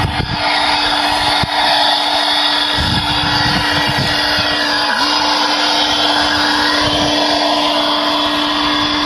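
Electric irrigation pump motor at a farm well running steadily, with a constant hum over a noisy whir. Low rumbles come and go, about three seconds in and again around seven seconds.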